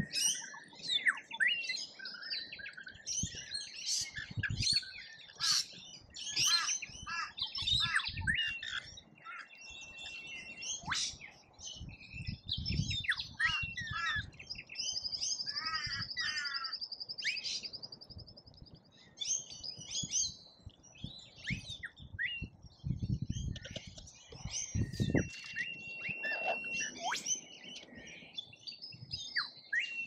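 Rainbow lorikeets and noisy miners calling at a feeder: a dense mix of shrill chirps, squawks and chatter, with a rapid trill held for about three seconds midway. Low thumps come now and then.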